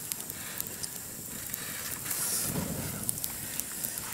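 Small open wood fire crackling: scattered sharp pops over a steady hiss.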